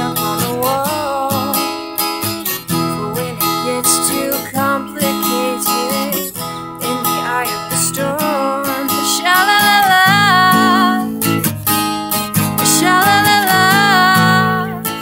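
Acoustic guitar strummed as accompaniment to a young woman singing. The singing grows louder and clearer about nine seconds in.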